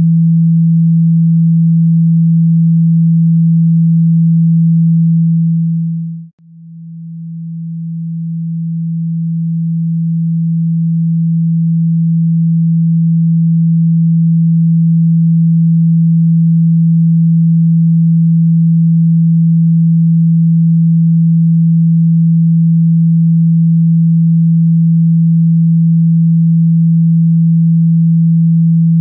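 A steady, low pure tone played at full volume as a speaker-cleaning (water-eject) signal, meant to vibrate water and dust out of a phone speaker. About six seconds in it drops out abruptly for an instant, then swells gradually back to full loudness over several seconds.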